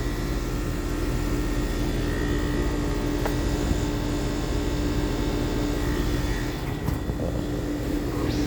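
Carrier Sentry heat pump outdoor unit running: a steady hum from the compressor and condenser fan with a constant low tone and no rattle.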